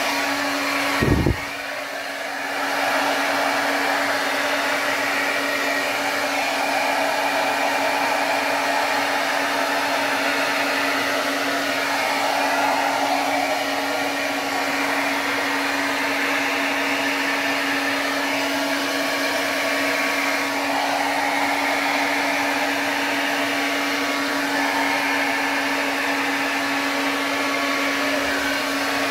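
Handheld hair dryer running steadily, blowing air across wet acrylic paint, with a constant hum under the rush of air. A brief low thump about a second in.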